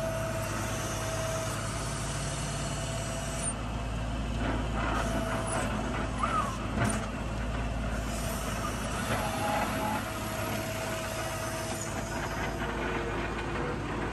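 Skid steer engine running steadily under load while the loader works its bucket, with a whine that comes and goes. A few sharp knocks about halfway through.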